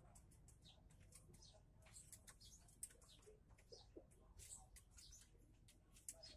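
Near silence with faint, high-pitched bird chirps, several a second, in the background.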